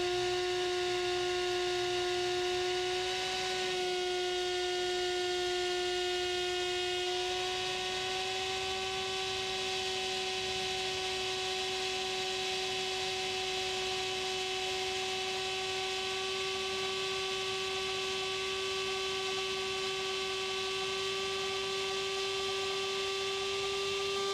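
Brushless drone motor spinning a propeller fitted with a 3D-printed guard ring, held at part throttle, about 50%: a steady hum whose pitch steps up slightly a few seconds in and again at about seven seconds, then creeps slowly higher.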